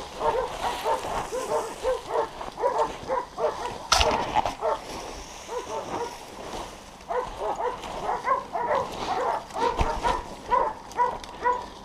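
Hunting dogs barking in quick, overlapping barks, baying at a shot wild boar they are holding at bay. A brief sharp knock about four seconds in.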